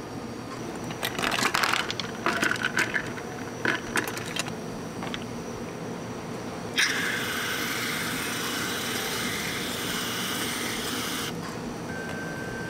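Ice cubes and a metal spoon clinking against a glass and a metal bowl in a quick run of clinks. Then a steady hiss of whipped cream being sprayed from an aerosol can for about four and a half seconds, starting and stopping sharply.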